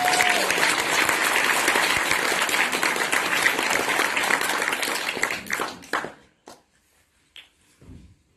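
Audience applauding: dense clapping that dies away about six seconds in, leaving a few last scattered claps.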